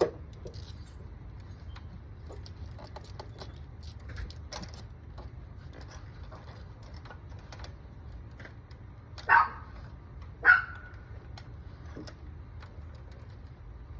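A dog barks twice, about a second apart, over scattered faint metallic clicks and clinks of hand tools.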